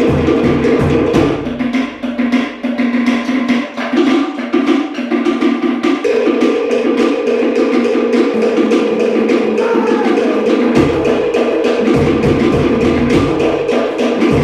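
Cook Islands drum ensemble playing a fast, driving rhythm on wooden slit log drums, with rapid hollow wooden strikes. A large bass drum adds deep strokes that drop out about a second and a half in and return near eleven seconds.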